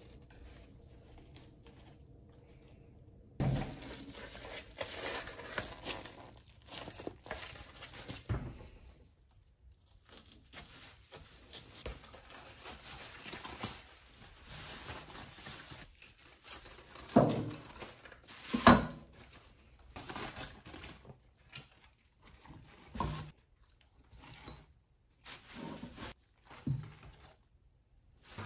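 Plastic bag crinkling as a large napa cabbage is handled, then crisp cracks and knocks as a kitchen knife cuts through the cabbage's thick base and its leaves are broken off; two loud cracks come close together about two-thirds of the way through.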